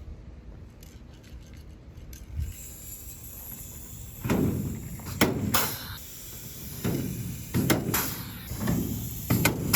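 Pneumatic pop-rivet gun setting rivets in an aluminium sprint car wing, with about seven sharp pops and air hisses in the second half. A steady high hiss of compressed air runs underneath.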